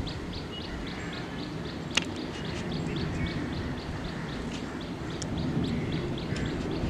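Outdoor ambience: a high chirp repeated evenly, about three to four times a second, over a low steady rumble, with a single sharp click about two seconds in.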